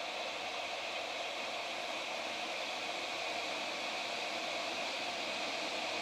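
Small electric travel kettle heating water toward the boil: a steady hiss that slowly grows louder and brighter as the water warms.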